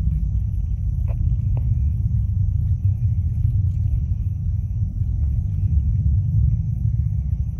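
Distant Delta IV Heavy rocket launch: the three RS-68A booster engines heard as a steady low rumble.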